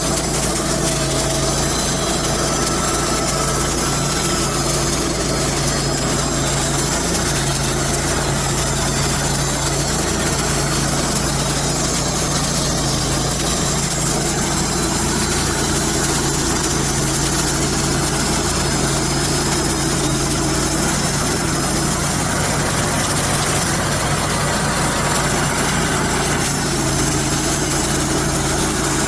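Engine-driven bandsaw sawmill running steadily under load, its engine droning at a constant speed as the blade cuts lengthwise through a mesquite log.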